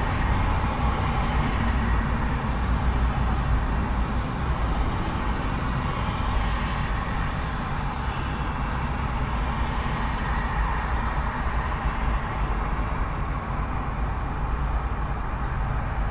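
Continuous rumble and tyre noise of fairly heavy road traffic passing close by, swelling slightly as vehicles go past.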